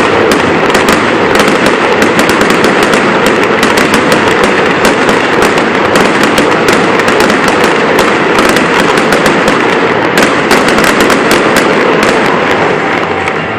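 Fireworks going off in a dense, unbroken crackle of rapid pops, easing off slightly near the end.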